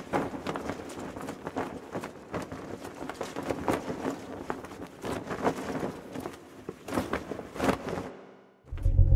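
A dense run of irregular knocks and scuffs, stopping suddenly about eight seconds in; a loud low rumble starts near the end.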